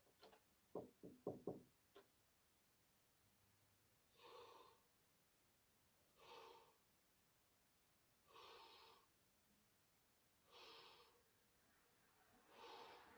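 Faint breathing: five even breaths about two seconds apart, after a few quick taps or knocks in the first two seconds.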